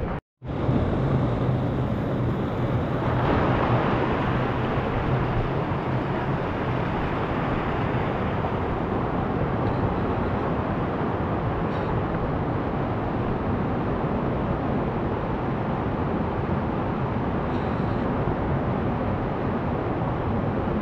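Fast, muddy river rushing over rocks in a steady loud rush of water, with a brief gap just after the start.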